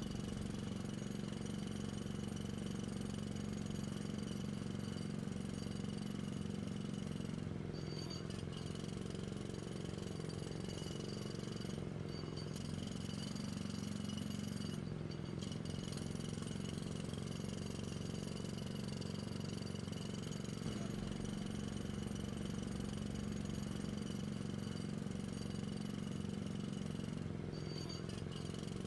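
A small electric power tool running steadily as it cuts an opening in drywall, with a few brief dips in its whine.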